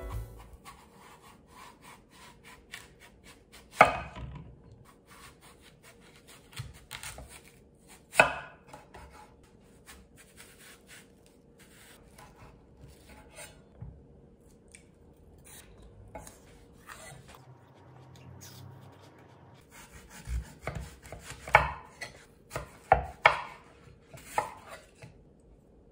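Chef's knife cutting through a whole apple and knocking onto an end-grain wooden chopping board. Two sharp knocks come a few seconds apart in the first part, with faint cutting and rubbing between them, then a quick run of knocks near the end as the apple is cut into pieces.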